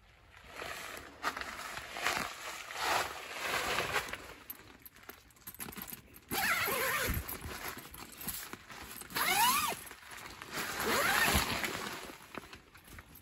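Tent zipper being pulled along a nylon tent panel in a series of strokes, with the fabric rustling. The longer pulls, about halfway through and twice near the end, rise in pitch as they run.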